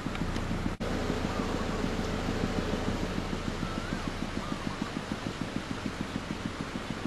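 A motor vehicle's engine running steadily with a fast, even low throb. It drops out for an instant just under a second in.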